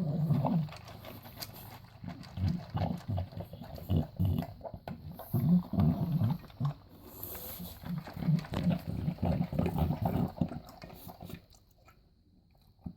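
English bulldog eating dry kibble, snorting and grunting in short irregular bursts between mouthfuls, then quieter for the last second or so.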